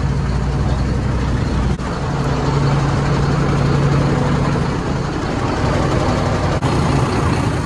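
Diesel engine of a crane lorry running steadily at idle, heard from underneath the vehicle. It is running again after its clogged fuel filter was cleaned, reseated and primed.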